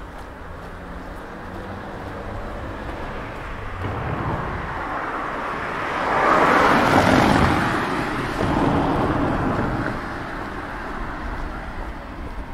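A car passing close by: its engine and tyre noise grow louder, peak about halfway through, then fade away again.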